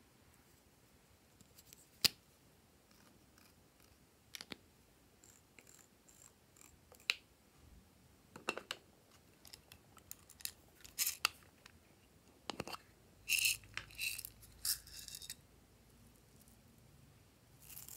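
Scattered clicks and taps of small plastic topping containers being opened and handled, with a short run of quick rattling about three-quarters of the way through.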